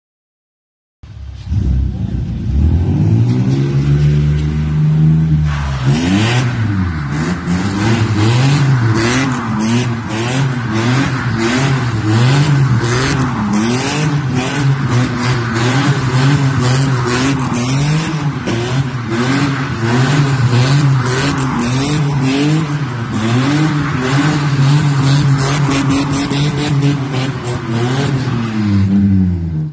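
BMW E36 sedan spinning donuts: the engine revs climb steadily, then from about five seconds in rise and fall about once a second over continuous tyre squeal.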